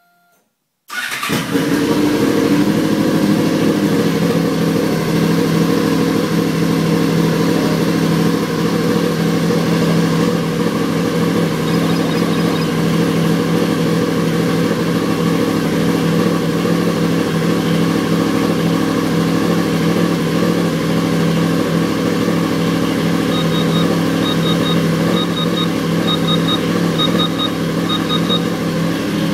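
Honda VFR800's V4 engine running steadily at idle, coming in suddenly about a second in. Short high beeps in quick threes sound over it several times near the end.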